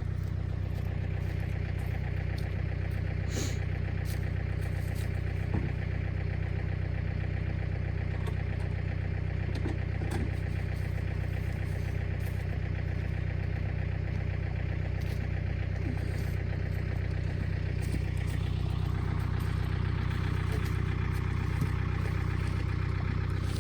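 A vehicle engine running steadily at low speed, with no rise or fall in revs.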